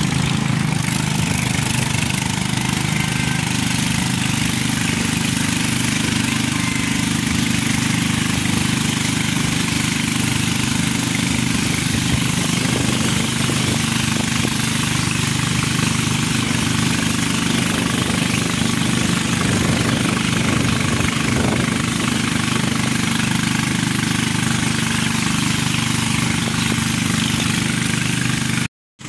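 A boat engine running steadily at cruising speed, a constant drone with noise from the water and hull over it; the sound drops out for a moment near the end.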